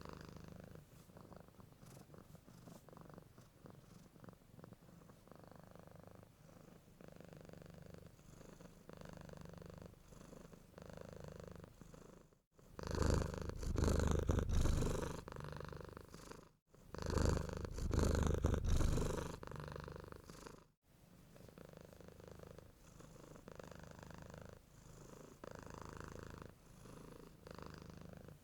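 Domestic cat purring steadily, with a much louder stretch of about eight seconds in the middle that begins and ends with abrupt cuts.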